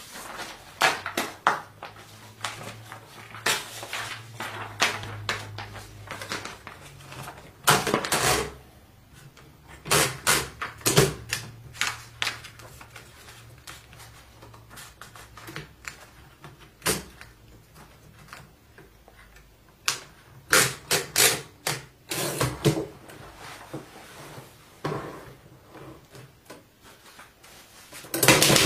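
Underwood manual typewriter being readied: scattered clicks and clunks of the carriage, platen and paper being handled, some in quick clusters, as a sheet is fed in. Rapid typing starts near the end.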